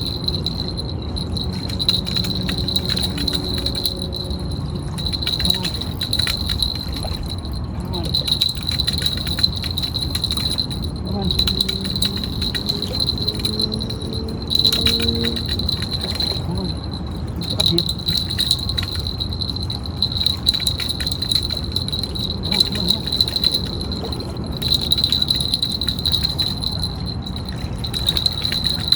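Fishing reel being cranked against a hooked fish: a steady high whine with fast fine clicking that breaks off briefly every few seconds as the cranking pauses. Wind rumbles on the microphone underneath.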